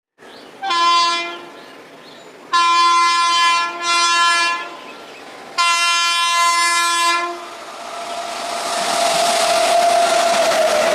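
Indian Railways locomotive horn sounding four blasts, the last the longest, followed by the growing clatter of a train running past on the rails.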